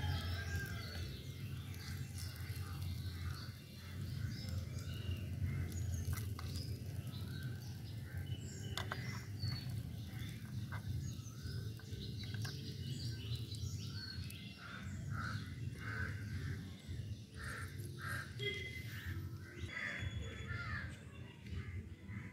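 Small birds chirping and calling over a low steady hum, with a few light clinks of a small steel spoon scraping a miniature pan.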